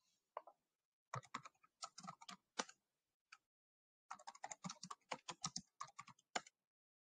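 Typing on a computer keyboard, picked up by a video-call microphone: two faint runs of quick keystrokes, the first starting about a second in and the second about four seconds in.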